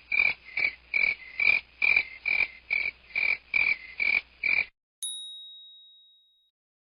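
A frog croaking in a steady series, about a dozen short croaks at a little over two a second, stopping suddenly. About five seconds in, a single clear bell-like ding rings out and fades.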